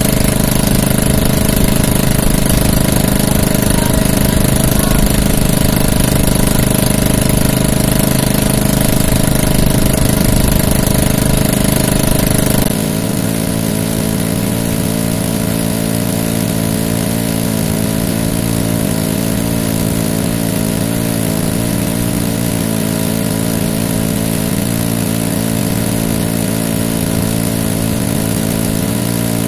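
An outrigger fishing boat's engine running steadily. About halfway through it changes abruptly to a slightly quieter, less even running, as if throttled back.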